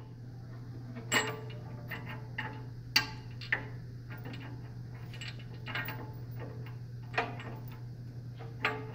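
Scattered sharp metal clicks and taps, about six in all, as a steel pulley is fitted onto a shoulder bolt by hand, over a steady low hum.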